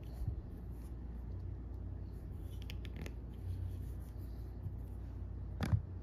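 Small plastic building bricks handled and pressed onto a plastic baseplate: a few faint clicks around the middle and one sharper snap near the end, over a steady low hum.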